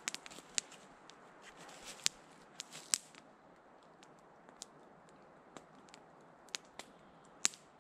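A few sharp, scattered clicks and crackles of dry twigs and leaf litter as a man steps onto a log bench and settles onto it, over a faint, quiet background.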